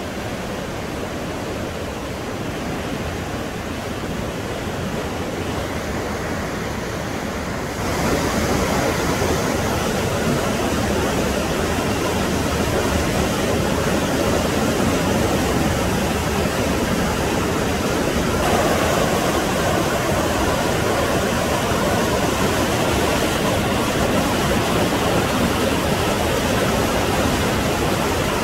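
Whitewater of a waterfall rushing through a narrow rock gorge: a loud, steady rush of water that gets louder about eight seconds in.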